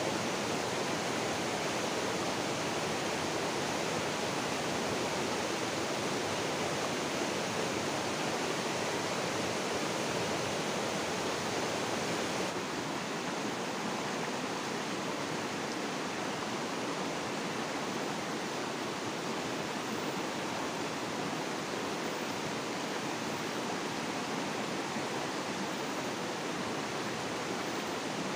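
Shallow, fast river rushing over rocks: a steady roar of rapids, dropping slightly in level about halfway through.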